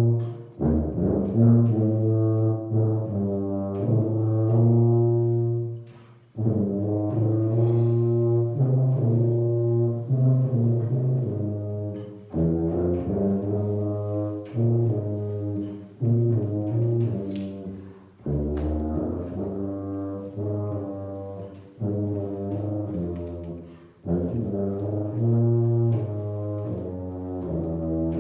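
Solo tuba playing a melodic line of low notes in about five phrases, each a few seconds long, with a brief break for breath between phrases.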